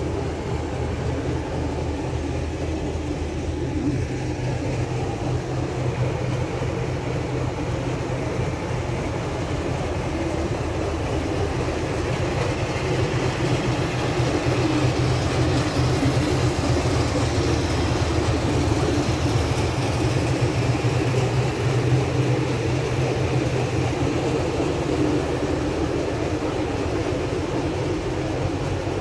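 Diesel locomotive idling: a steady low engine drone that grows louder about halfway through and eases again near the end.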